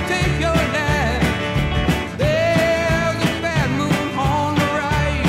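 Background music: a song with a steady drum beat under a gliding melody line.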